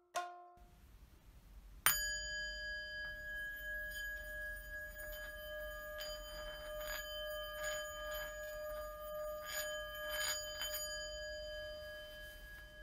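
A plucked note fades at the start. About two seconds in, a bell-like instrument is struck once and rings on steadily with a clear, pure tone and shimmering overtones. Fainter soft notes sound over the ringing through the middle.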